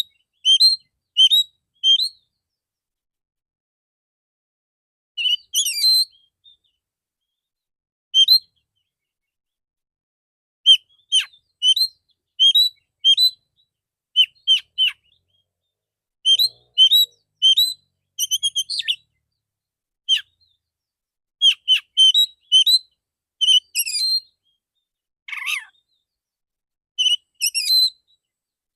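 Male Oriental magpie-robin singing: short, sharp whistled notes in clusters of two to five, with silent gaps of up to a few seconds between clusters.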